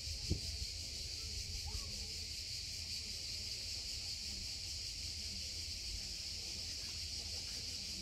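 Cicadas singing as one steady, unbroken high-pitched drone.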